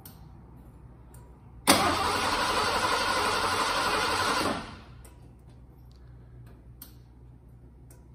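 1986 Ford F-150's fuel-injected 5.0 V8 being cranked over by the starter for about three seconds, starting suddenly about two seconds in and winding down, without catching. The truck had sat for 15 years and was not getting fuel past its high-pressure pump.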